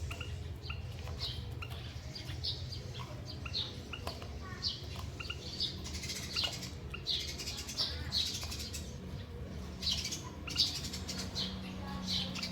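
Small caged finches, a canary and a white-headed munia, giving short high chirps again and again, several a second at times, over a steady low hum.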